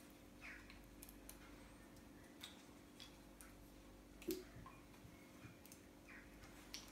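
Near silence broken by faint, scattered small clicks and ticks from a Minox daylight developing tank being handled as film is fitted under its bracket. One slightly louder tap comes about four seconds in.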